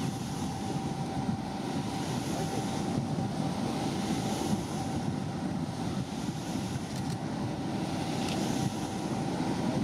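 Harbour tug's engines running as it passes at speed, a steady low rumble with a faint steady hum, mixed with its bow wave and wash and wind buffeting the microphone.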